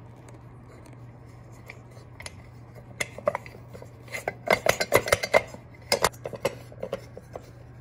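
Metal clinking and clicking of a pendant light's chain and canopy nut as the nut is turned by hand on the threaded post, in a cluster of sharp clinks starting about three seconds in and busiest in the middle.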